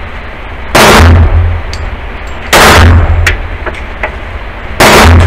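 Three loud shots from a 9mm semi-automatic pistol, fired slowly about two seconds apart, each echoing briefly off the walls of an indoor range.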